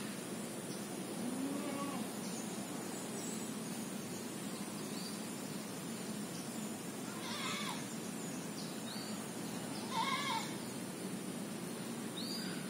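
Outdoor ambience: a steady high-pitched hum, a few short chirps, and brief animal calls, the two clearest about seven and ten seconds in, the louder one near ten seconds.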